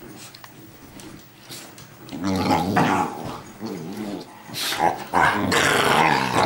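Two young Tosa Inu dogs play-fighting, growling and grumbling at each other. The growls start about two seconds in and grow louder and rougher near the end.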